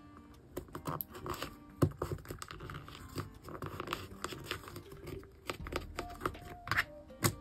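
Paper and card being handled: rustling, crinkling and light scraping with many small irregular taps, and a sharper tap about two seconds in and another near the end.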